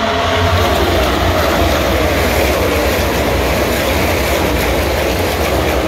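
Pack of NASCAR Cup Series stock cars racing past on the front straight, their V8 engines together making a loud, dense wall of engine noise. Engine pitches slide downward in the first second or so as cars go by.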